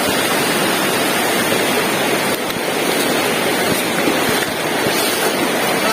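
Steady rushing of water from a waterfall and mountain stream.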